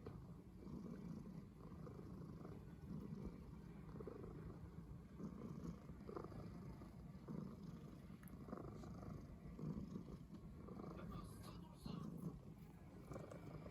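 Calico cat purring steadily while being stroked, the purr swelling and easing roughly once a second with each breath.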